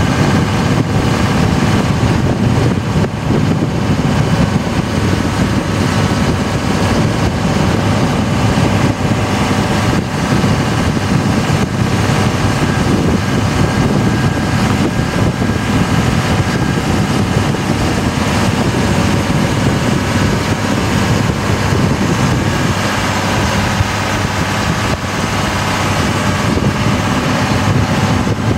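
2002 Dodge Ram's 24-valve Cummins 5.9 L inline-six turbo diesel running steadily under heavy load, towing a roughly 22,000 lb bulldozer on a gooseneck trailer in low range. Heard from outside the cab, mixed with road noise.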